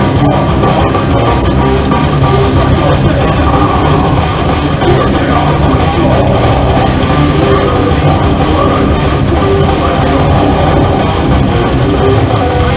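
Heavy metal band playing live at full volume: distorted electric guitars and a drum kit in a dense, unbroken wall of sound.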